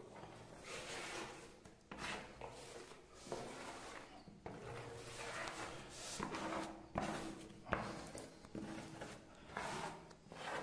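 Plastic spatula pulled repeatedly through wet epoxy liquid-porcelain coating on a floor: faint scraping strokes a second or so apart, with a few sharp clicks.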